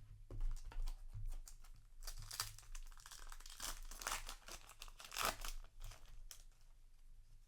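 Foil trading-card booster pack being torn open and crinkled by hand, a few sharp crackles first, then a few seconds of dense crinkling.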